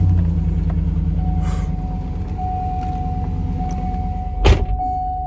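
Truck engine running at fast idle just after a cold start, a steady low rumble easing slightly. A steady high electronic tone joins about a second in, and a sharp thump comes about four and a half seconds in.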